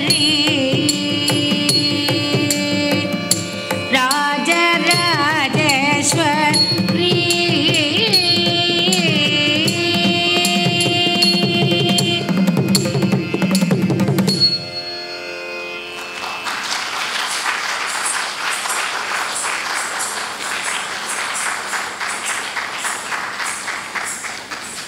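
Carnatic dance music for Bharata Natyam: a wavering, ornamented melody over a steady drone and drum strokes, stopping about two-thirds of the way through. Then a dense, steady rattling noise takes over for the last stretch.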